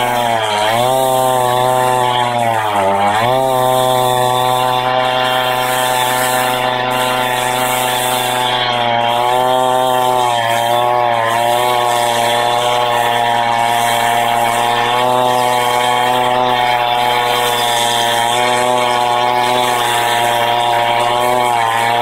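Husqvarna 390XP two-stroke chainsaw with a 28-inch bar and ripping chain, running at high revs as it rips lengthwise through a Douglas fir log. The engine bogs down briefly twice in the first few seconds under the load of the cut, then holds a steady pitch.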